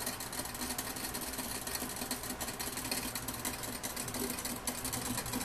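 Steady low hum over a hiss from a running steam distiller with its water boiling.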